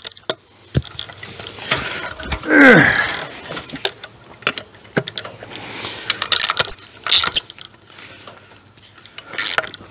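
Ratchet wrench clicking in short runs as nuts are tightened on bolts through two 2x6 boards clamping fence wire, for a homemade fence stretcher. About two and a half seconds in there is a loud short squeal that falls in pitch.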